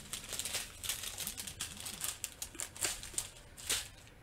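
Thin plastic bags of diamond painting drills crinkling as a strip of them is handled and unfolded, with irregular crackles.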